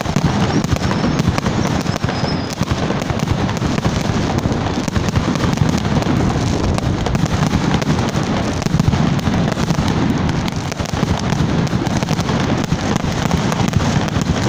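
Many aerial fireworks going off at once: a dense, continuous crackle of bangs and bursts with no pause. A faint high whistle runs through the first two seconds.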